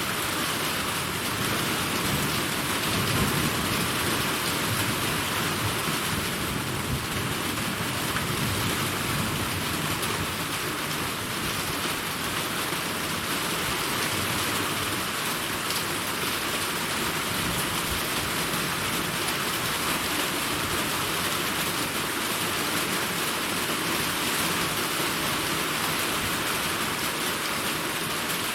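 Steady heavy rain from a summer rainstorm, a dense even hiss of drops pattering on surfaces. A low rumble of thunder runs under the rain for the first several seconds, then fades out.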